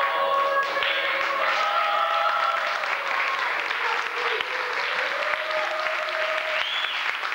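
Audience applauding, with voices calling out over the clapping.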